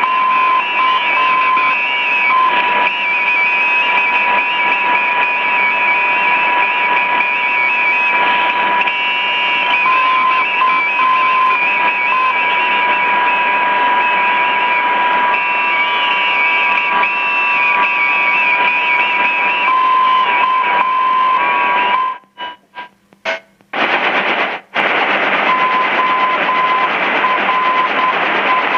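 Non-directional navigation beacon received in AM on a longwave radio receiver: a steady high tone over loud static hiss, broken at intervals into Morse-code dots and dashes, the beacon's identifier. About 22 seconds in, the audio cuts out several times as the receiver is retuned, and then another beacon's Morse tone comes through the hiss.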